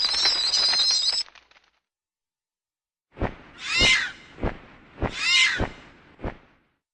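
Flying fox (fruit bat) calls: dense, high-pitched chattering squeals cut off about a second in. After a pause, a few sharp clicks come with two shrill screeches that fall in pitch.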